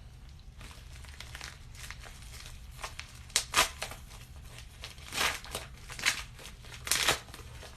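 Packaging crinkling and rustling as a subscription beauty package is handled and opened, with a few louder crackles in the second half.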